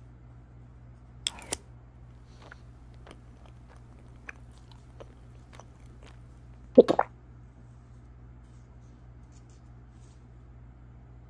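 Scattered crisp crunching clicks over a steady low hum: two sharp ones about a second in, a few faint ones after, and a louder quick cluster about seven seconds in.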